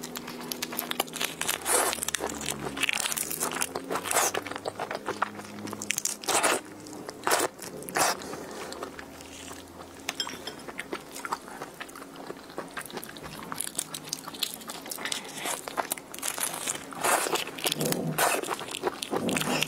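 Close-miked crunching and cracking of shrimp shells as large red shrimp are bitten and broken apart by hand and mouth, many sharp irregular cracks with wet mouth sounds between them.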